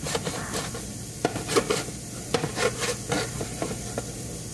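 Kitchen knife slicing andouille sausage on a plastic cutting board: irregular strokes of the blade against the board, two to three a second, over a steady sizzle from diced peppers frying in a pan.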